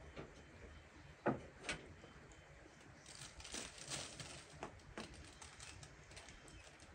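A few irregular light clicks and knocks, the sharpest about a second and a quarter in, with a looser run of smaller clicks in the middle.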